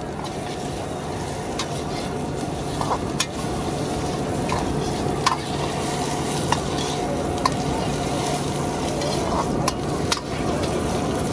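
Food stir-frying in a hot pan: a steady sizzle of oil, with a metal spatula scraping and clinking against the pan now and then.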